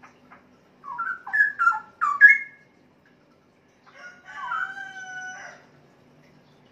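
Male straw-headed bulbul (cucak rowo) singing a short, loud phrase of four or five quick whistled notes swinging up and down. About two seconds later comes a quieter, longer drawn-out call.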